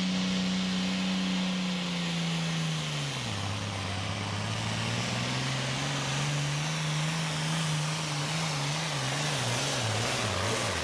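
Case IH 7240 Super Farm pulling tractor's turbocharged diesel engine running at full throttle while dragging a pulling sled. Its note holds steady, drops sharply about three seconds in, climbs back slowly, then wavers up and down near the end as the revs surge.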